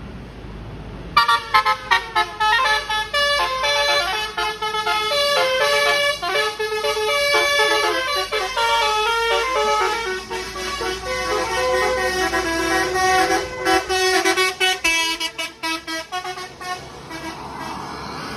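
Bus telolet basuri horn, a multi-trumpet musical air horn, playing a melody of short stepped notes. It starts abruptly about a second in and dies away near the end.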